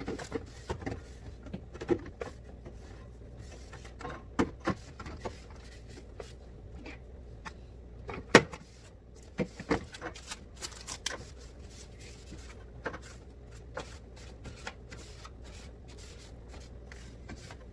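Items and containers being handled and set down while a refrigerator is organized: irregular clicks, taps and knocks, the sharpest about eight seconds in, over a steady low hum.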